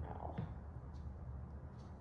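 Faint steady low hum of room noise, with a single light knock about half a second in as a model horse's hooves are set down on a wooden table.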